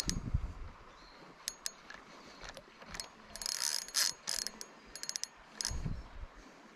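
Spinning reel clicking in irregular short bursts, some rapid runs of ticks, while a hooked salmon is played on the rod. A couple of dull low thumps, at the start and near the end.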